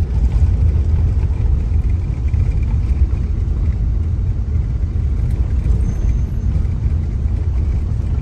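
Steady low rumble of a car driving along the road, engine and tyre noise with no distinct events.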